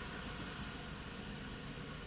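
Faint, steady rumble of a car running, heard from inside its cabin.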